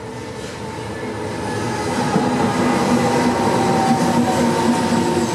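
Trenord regional passenger train with an E464 electric locomotive, arriving and running past a platform. The rumble of the wheels grows louder over the first two seconds as it draws near, then stays loud as the coaches pass, with steady tones riding over the noise.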